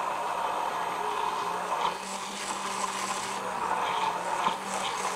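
Handheld stainless-steel immersion blender running steadily in a tall glass, puréeing a thin, liquid piri-piri sauce with fresh herbs. A constant motor hum sits under the wash of liquid being churned.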